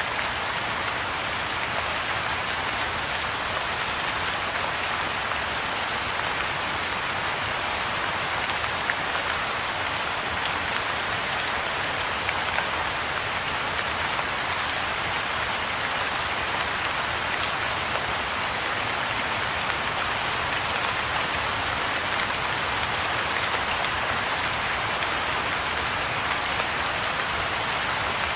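Steady rain falling on the surface of a pond, an even hiss of countless drops with no change in strength.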